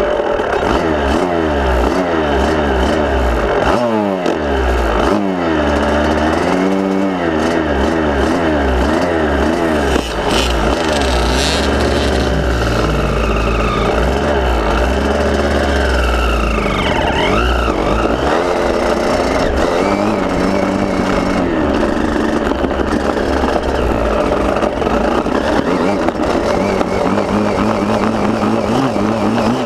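KTM motocross bike engine heard up close from the onboard camera, revving up and down repeatedly with its pitch rising and falling.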